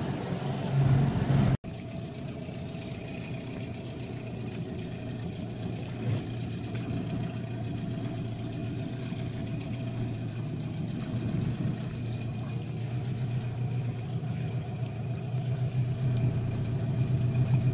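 Dinghy outboard motor idling: a steady low hum, with a sudden brief drop-out about a second and a half in.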